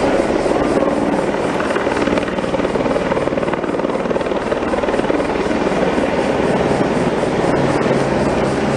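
Helicopter with a steady, continuous rotor-and-engine drone.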